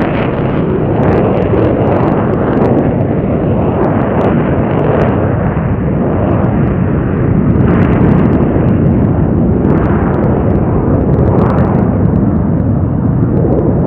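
Twin-turbofan jet noise of an F-22 Raptor in flight: a loud, steady rumble with sharp crackles scattered through it.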